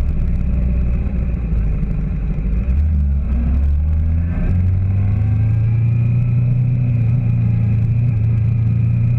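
Motorcycle engine running while riding in traffic, a steady low engine note that steps up in pitch about four and a half seconds in and then holds steady.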